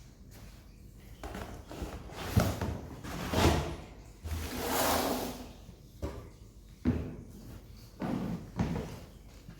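Objects being handled and set down: a string of irregular knocks and thuds, with a longer swish about four and a half seconds in.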